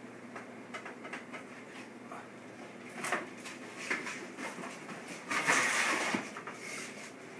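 Knife clicking and scraping on a plastic cutting board as fat is trimmed off raw pork chops, followed by footsteps and handling noises, with a louder burst of clattering noise lasting about a second, some five and a half seconds in.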